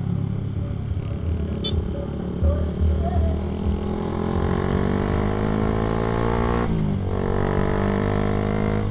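Motorcycle engine pulling under acceleration: its pitch climbs steadily for a few seconds, drops sharply at a gear change about seven seconds in, then climbs again.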